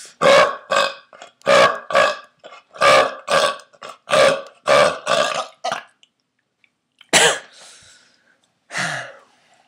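A man belching on purpose over and over: about ten short burps in quick pairs, then two more after a pause.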